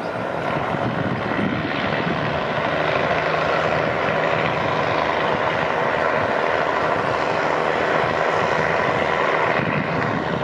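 Diesel railcar's engines running with a steady drone as the train moves slowly through the yard.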